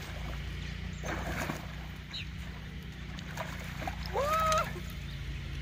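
A hooked catfish splashing and thrashing at the water's surface as it is brought in to be landed. A short rising vocal cry about four seconds in is the loudest sound.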